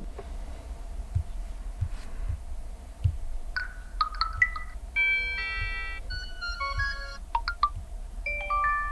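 Huawei Nova 10 smartphone notification tones previewed one after another through the phone's speaker. From about three and a half seconds in there are several short electronic chimes of a few notes each. Before them is a stretch of low hum with a few faint ticks.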